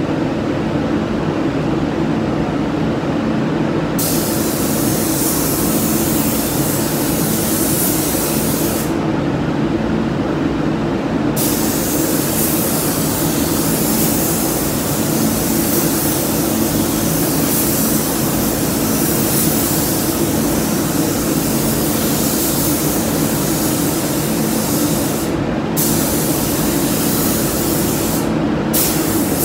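Gravity-feed paint spray gun hissing as paint is sprayed, in long passes with the trigger released between them: one pass of about five seconds, a gap of two seconds, then a long pass broken only briefly twice near the end. A steady low hum runs underneath.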